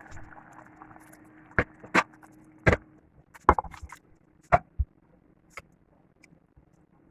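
A string of sharp clicks and knocks, about eight in all, typical of kitchen utensils against a pot or bowl, over a steady hum that stops about three seconds in.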